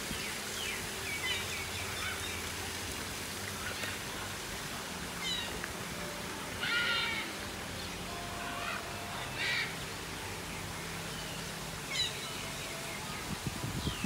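Birds calling in an aviary: scattered short calls every second or two, the loudest about halfway through, over a low steady hum.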